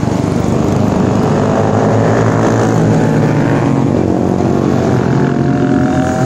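Engines of several classic racing motorcycles running as the bikes ride past one after another, their overlapping engine notes shifting in pitch as they go by.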